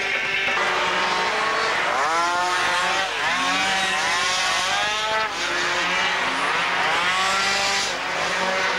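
Several 50cc two-stroke racing scooter and moped engines running hard on the circuit, their pitch sweeping up and down over and over as they ease off and accelerate through the corners, several engines overlapping.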